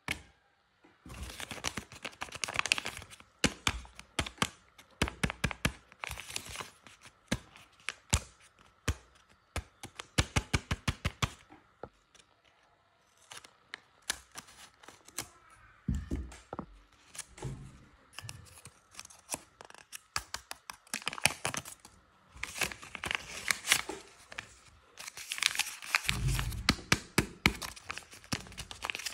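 Kraft-paper blind bags being handled, squeezed and torn open: dense crackling paper rustle with many sharp crinkle clicks, easing into a quieter pause about halfway through.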